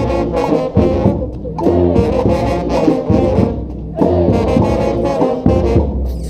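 Brass street band playing a tune in full ensemble, horns holding and moving between notes over regular sharp percussive hits.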